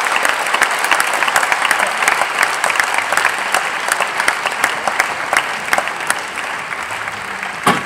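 Spectators applauding in a sports hall: many hands clapping at once, slowly dying down toward the end. A single short thump stands out just before the end.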